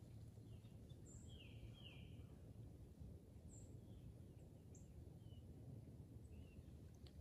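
Near silence in woodland: a faint steady low rumble, with a few short, high bird chirps, the clearest a two-part chirp about a second and a half in.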